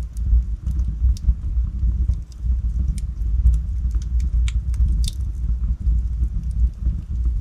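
Logs burning in a fireplace: a steady low rumble of the fire with irregular sharp crackles and pops, one louder pop about five seconds in.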